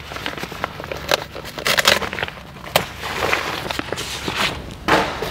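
Rustling, scraping and irregular clicks of a deployed driver's airbag being cut free from the steering wheel with a razor blade and pulled out.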